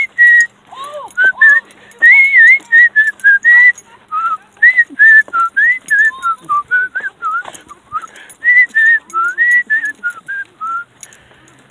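A person whistling a tune close to the microphone: a string of short, clear notes that rise and fall, with no pauses longer than about a second.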